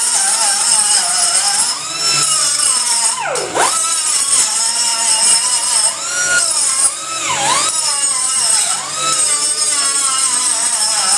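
Angle grinder cutting into a flanged steel pipe, a high whine over the hiss of grinding metal. Twice the whine drops sharply in pitch and climbs back as the disc is pressed hard into the steel.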